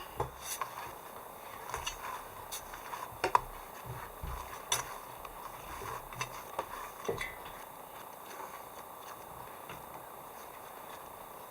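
A dozen or so scattered light clicks and knocks, as of small hard objects being handled, over the first seven seconds, then only a faint steady background.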